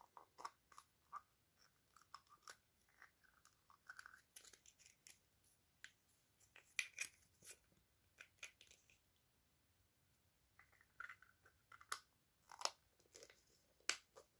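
Faint, scattered clicks and brief crinkly rustles of a small plastic toy being worked over in the fingers, with short quiet gaps between them.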